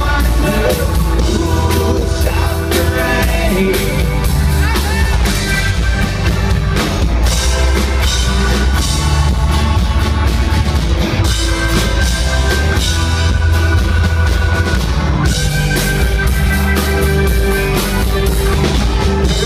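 Rock band playing live: drum kit keeping a steady beat under electric guitars, with a voice singing at times.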